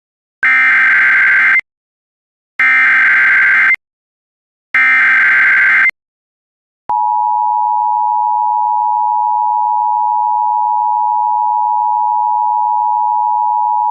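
Emergency Alert System alert opening with three bursts of SAME digital header tones, each about a second long with about a second between them. About a second after the last burst, the steady two-tone EAS attention signal starts and holds without change.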